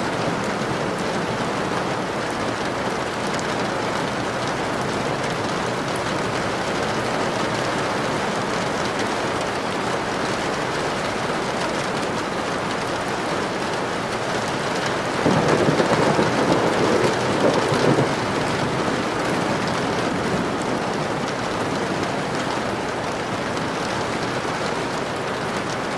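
Steady rain falling, with a louder surge of about three seconds roughly fifteen seconds in, likely a roll of thunder.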